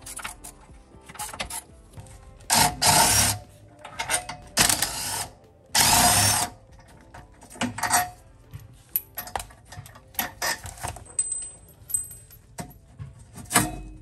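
Impact wrench run in several short bursts, each under a second, loosening nuts on the driveshaft support brackets. Scattered clicks and knocks come in between.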